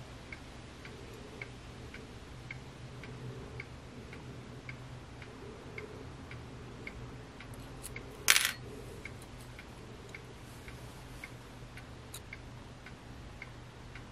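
Steady soft ticking, about two ticks a second, over a faint low hum, with one sharp clink about eight seconds in.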